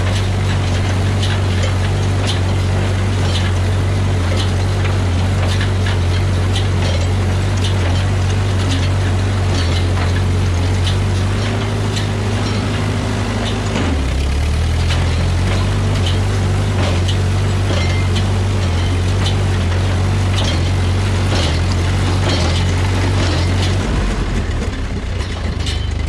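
Tractor engine running steadily under load as it drives a Massey Ferguson small square baler picking up hay, with repeated clacks and clatter from the baler's working parts. The engine note steps down about halfway and drops lower near the end.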